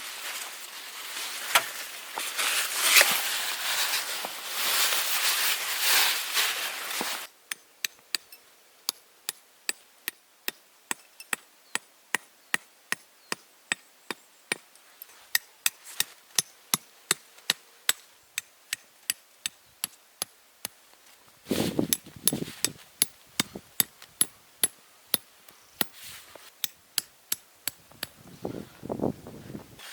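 Rustling and scraping for the first several seconds. After that comes a long run of light, sharp knocks at an even pace of about two to three a second, like hammering.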